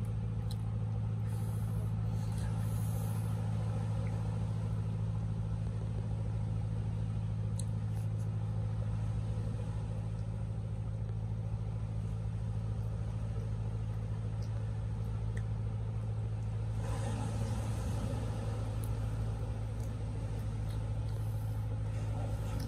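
Boat engine droning steadily at a low, even pitch.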